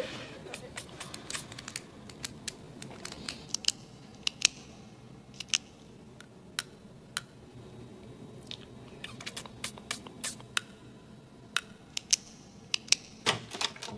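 Scattered sharp clicks and ticks at an irregular pace, several a second at times, over a faint low hiss.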